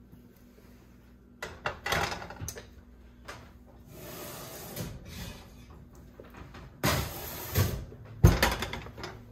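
Glass baking dishes of bread being taken out of the oven and set down on the metal coil burners of an electric stove: scattered knocks and scrapes about two seconds in, and louder clunks near the end.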